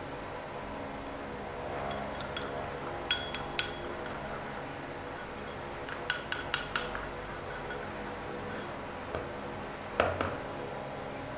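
Metal spoon scraping and tapping against a small cup as gram flour is knocked out of it into a mixing bowl: scattered light clinks, a quick run of them about six seconds in, and a louder knock about ten seconds in. A steady low hum runs underneath.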